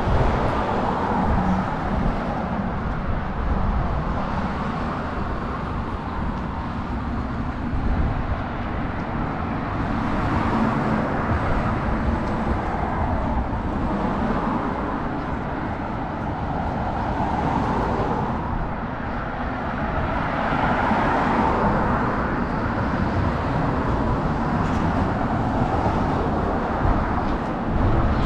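Road traffic on a city street: a steady rush of car tyres and engines, swelling and fading as vehicles pass, with louder passes about a second in, around ten seconds in and around twenty seconds in.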